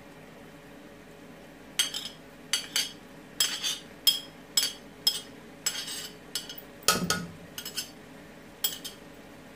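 Metal spoon clinking and tapping against a china plate as chopped coriander and green chili are scraped off it into a pot, then on the pot itself: a dozen or so sharp clinks at irregular intervals, starting about two seconds in. A faint steady hum lies underneath.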